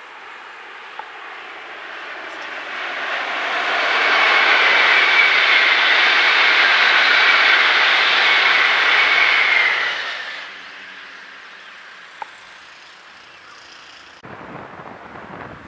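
Shinkansen bullet train passing at speed over a concrete viaduct: a rushing hiss with a faint whine in it that swells over about two seconds, holds for about six, then falls away quickly.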